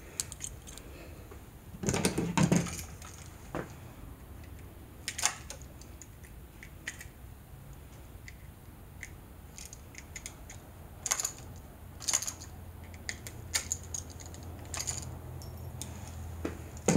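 Small metal clicks and clinks from a screwdriver working at the terminal screws of a single-pole wall switch, getting cut wire scraps off the screws. A louder clatter comes about two seconds in, then scattered single clicks.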